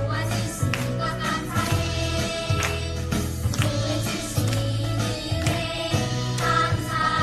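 A children's group singing a Korean praise song together, accompanied by bass guitar and cajon, with the bass holding low notes under regular cajon hits.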